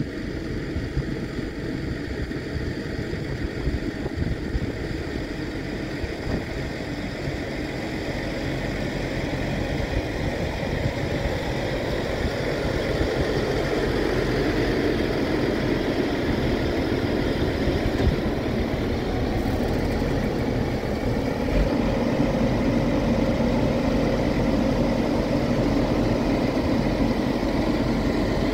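Fendt tractor's diesel engine running, growing louder as the tractor comes up to the round bale. About two-thirds of the way in the engine settles into a steady higher note that holds as the front loader raises the bale on the fork.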